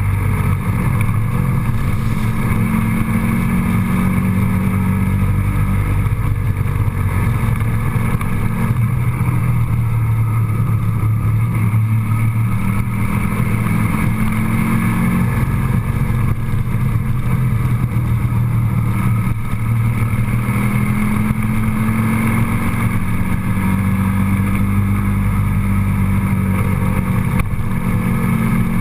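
A motor vehicle running steadily: a low engine drone whose pitch shifts slightly now and then, over steady road noise.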